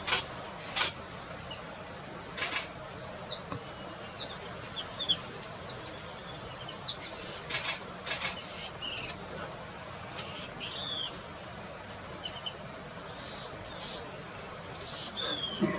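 Wild birds calling: many short chirps and whistled notes scattered over a steady hiss, broken by several brief, loud, sharp sounds, two of them close together about eight seconds in.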